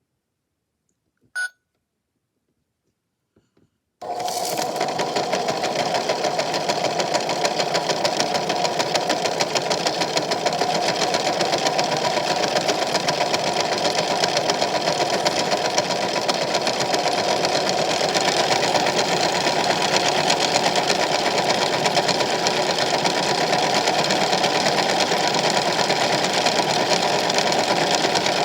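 A short beep about a second in, then, about four seconds in, a Super Chef toy washing machine's small motor starts its spin and runs with a steady, fast-rippling buzz.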